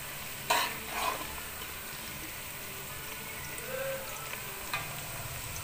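Sliced onions sizzling steadily in hot oil in a pot as they fry toward light brown, with a metal slotted spoon knocking against the pot twice in the first second.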